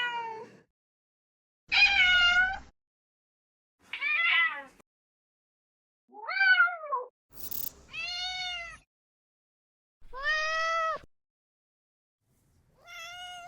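AI-generated cat meows from ElevenLabs' text-to-sound-effects tool, played one sample after another: about seven separate meows with short silences between them, one near the middle falling in pitch. A brief noisy click comes just before the meow about two-thirds of the way through.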